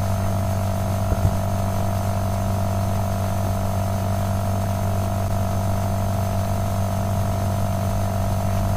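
Steady electrical hum, like mains hum picked up by the recording microphone, with two soft clicks about a second in.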